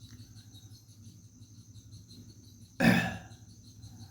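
A single short, loud burst about three seconds in, over a steady faint high pulsing chirr in the background.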